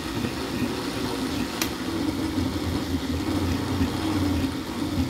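Black & Decker countertop blender motor running steadily, blending a thick smoothie of frozen fruit and kale.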